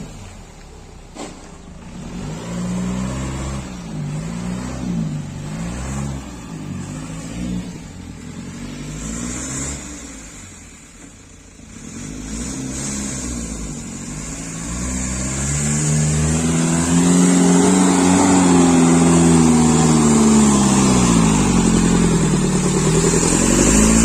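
JCB backhoe loader's diesel engine revving up and down repeatedly under load. About halfway through it grows louder, and its pitch climbs in one long rise and then eases back down near the end.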